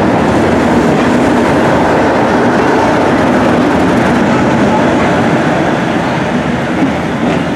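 A train passes at low speed, its coaches rolling by. The rear locomotive, Class 37 diesel 37714, then goes past with its English Electric engine running.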